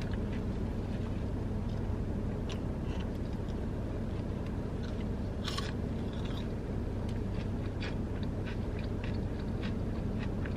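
Close-up mouth sounds of a person chewing food, with small wet clicks and one sharper click about halfway through, over a steady low hum.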